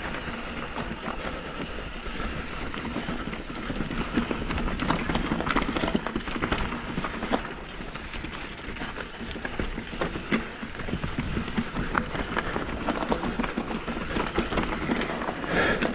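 Mountain bike rolling down a rocky dirt trail: the tyres crunch over dirt, loose stones and pine needles, with many small clicks and knocks as the wheels and bike jolt over rough ground.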